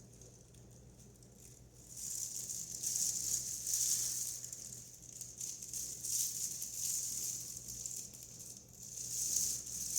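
Rustling and light rattling from small parts being handled in gloved hands, a fluctuating hiss that starts about two seconds in, over a faint steady low hum.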